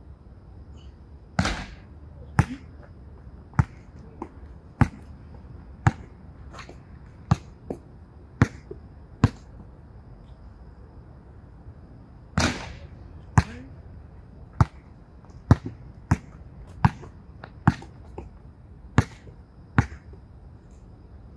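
Basketball dribbled on a hard court: single sharp bounces about once a second, with a pause of a few seconds midway.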